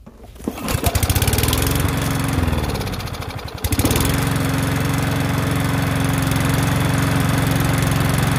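Small lawnmower engine, its recoil starter removed, catching about half a second in after being started with a cord wrapped around the flywheel. Its speed wavers and sags for a couple of seconds, then picks up near four seconds in and runs fast and steady.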